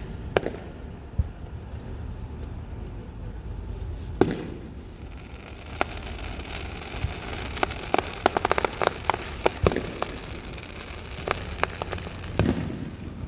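Aerial fireworks bursting: single booms every few seconds, with a quick run of rapid crackling cracks from about halfway through, over a steady low rumble.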